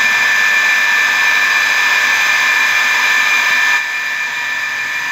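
Half-HP Tullu water pump's electric motor running with a steady high whine, a little quieter from about four seconds in. The pump has a newly fitted water seal and is being run in after it had to be spun by hand to start, so that the tight new seal beds in and frees up.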